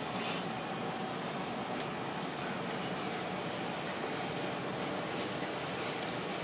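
Steady rushing hum of commercial kitchen equipment, with a thin high whine running through it. A brief scrape sounds right at the start.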